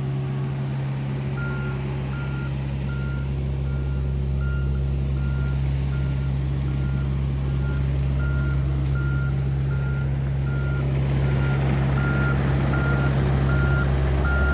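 Diesel engine of a small land-clearing machine (mini excavator or skid steer) running steadily while its backup alarm beeps, a single-pitch tone about one and a half times a second. The engine and beeps get a little louder in the second half.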